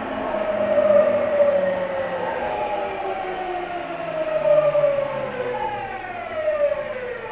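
Tokyu 9000 series commuter train's GTO VVVF inverter and traction motors whining, heard from inside a motor car. The whine falls steadily in pitch as the train brakes, then restarts and falls again a little over five seconds in.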